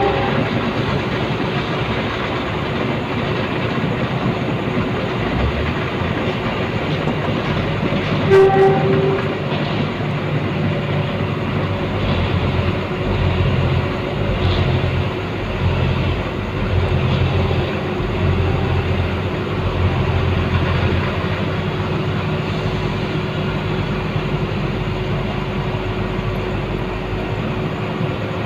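A continuous loud rumble that swells and fades, with a brief steady tone about eight seconds in.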